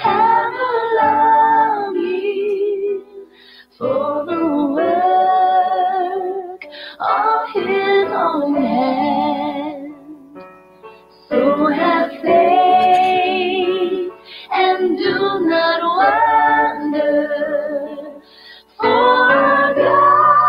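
A woman singing in phrases of a few seconds each, her voice wavering with vibrato, with short pauses between the phrases.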